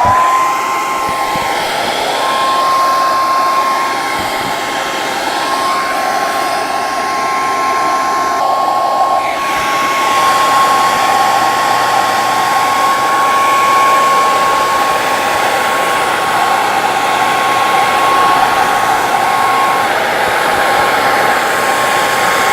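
Handheld hair dryer running steadily, its motor whine rising to pitch as it switches on and then holding level over the rush of blowing air, heating a tractor wheel cap to soften it for refitting.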